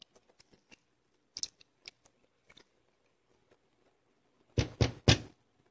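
Spatula stirring a stew in a pot with a few faint scrapes, then three sharp knocks of the spatula against the pot close together about a second before the end.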